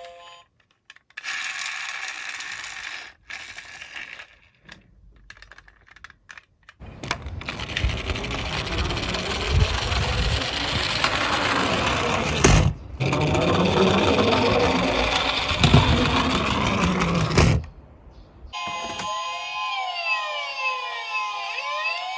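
A loud, rough clattering noise for about ten seconds in the middle. Then, near the end, a police-car siren wails with pitch sweeping up and down over steady tones.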